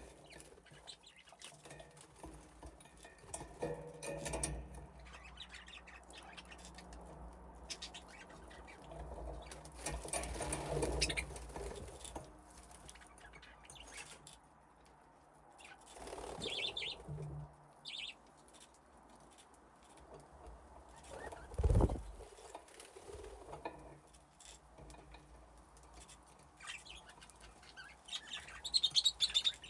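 Budgerigars in an aviary: wings flapping and fluttering as the birds fly and land, with a few short, scattered chirps. A single sharp thump stands out about two-thirds of the way through.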